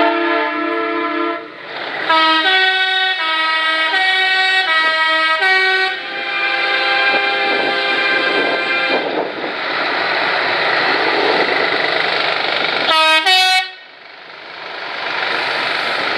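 Truck air horns sounding: a held horn note at the start, then a tune of stepped horn notes for about four seconds, and two quick blasts near the end, over a steady noisy rumble of passing traffic.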